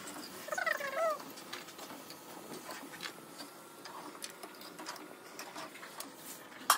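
Steel slotted spoon clinking and tapping against a kadai and a plate as fried soya chunks are scooped out of hot oil, one sharp clink near the end. A short high, wavering sound comes about half a second in.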